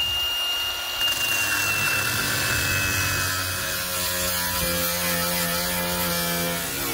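Milwaukee Fuel cordless angle grinder cutting into the steel front frame of a refrigerator cabinet, throwing sparks. It runs steadily with a high whine that drops slightly in pitch over the first few seconds as the disc bites into the metal.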